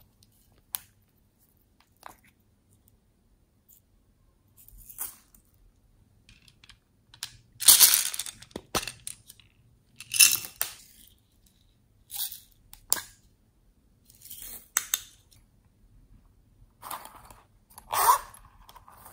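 Hands handling small plastic toys and containers over a glass dish of slime: a string of separate short rustles, clicks and rattles, among them toppings tipped out of a plastic cup onto the slime.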